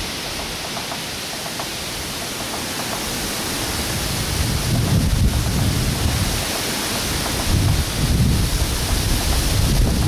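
Wind buffeting the microphone: a steady hiss with a low rumble that builds after about three seconds. Behind it, a woodpecker pecks at wooden house siding in faint, quick taps.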